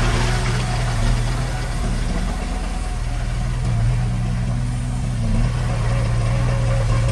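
Diesel engine of a Komatsu D31P crawler bulldozer running steadily at the low, even note of idle or light work. The note eases slightly a couple of seconds in, then picks back up.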